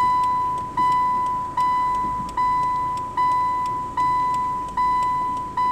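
A car's electronic warning chime dinging over and over, about one ding every 0.8 s, each a single high ring that fades before the next.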